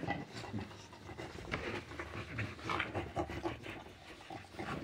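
American bully dogs panting and breathing hard while play-wrestling, in irregular short breaths.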